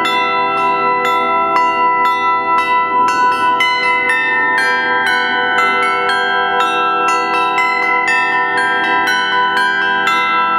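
Bells ringing: a quick, even run of struck notes, about three a second, their tones overlapping and ringing on.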